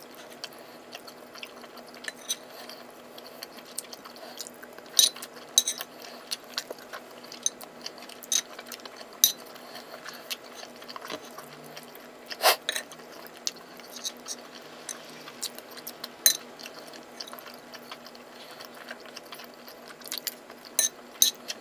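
Eating at a table: metal cutlery clicking and scraping on a plate at irregular intervals, with chewing, over a steady low hum.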